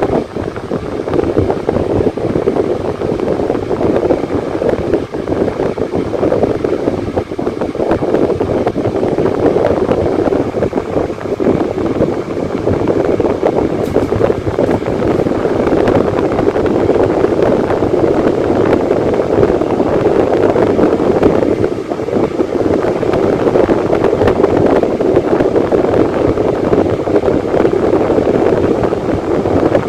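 Electric fan running: a loud, steady rush of air with slight slow rises and falls in level.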